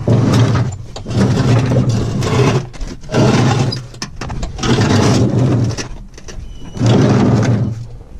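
A motor run in five bursts of about one to one and a half seconds each, with short pauses between.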